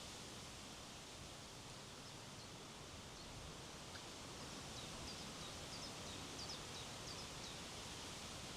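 Steady wind noise from a strong spring breeze, with a few faint, high, short bird chirps in the second half.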